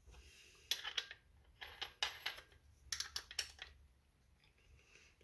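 Metal clinks and clicks from hand work on a cordless angle grinder: a cutting disc and its flange nut being fitted onto the spindle. The sounds come in three short clusters about a second apart.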